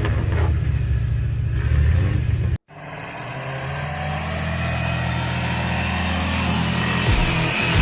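Off-road vehicle engine running under load. The sound cuts off abruptly about two and a half seconds in, then resumes as a steady engine drone that slowly grows louder.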